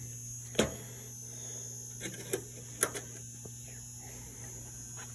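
Metal hand tools clinking and knocking as they are handled in a steel toolbox drawer: a handful of sharp separate clinks, over a steady low hum.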